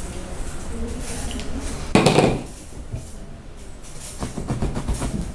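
A sharp knock or clatter about two seconds in, then a serrated knife sawing through a block of rigid packing foam in quick back-and-forth strokes near the end.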